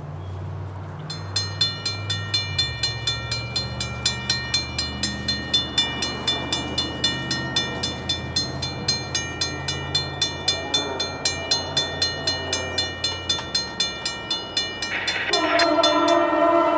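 Safetran mechanical crossing bell ringing steadily, about three strikes a second, over a low drone. Near the end a locomotive's Nathan K5LLA five-chime air horn starts blowing loudly; it is a 'sick' K5LLA, railfan slang for a horn that sounds out of tune.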